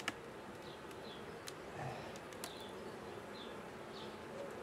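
Honeybees buzzing over an open hive, with a few light metallic clicks as the wire queen excluder is lifted off the frames.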